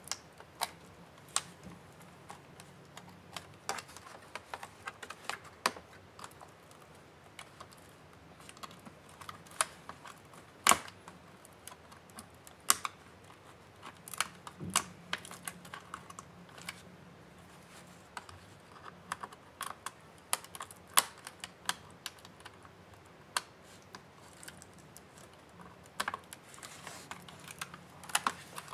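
Irregular light clicks and taps of a screwdriver and fingers on a laptop's plastic case and cable connectors during disassembly, a few of them sharper and louder.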